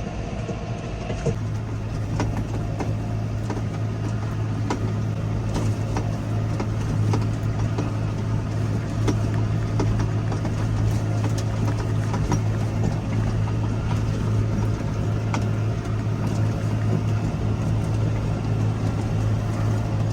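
Farm tractor engine running at a steady speed while pulling a hay rake through the field, with light clicks and rattles from the machinery over the hum.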